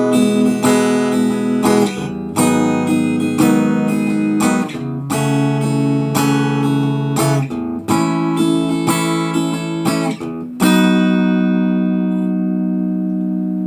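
Squier Bullet Telecaster electric guitar on its middle pickup setting (neck and bridge pickups combined), played through a Roland Cube amplifier. It plays a chord progression with a change about every two and a half seconds, and the last chord is left to ring out from about 11 seconds in.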